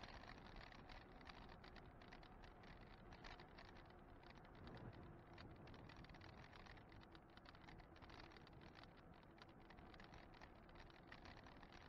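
Near silence: faint, steady rushing wind and road noise from an e-bike rolling along a paved road, with many light clicks and rattles.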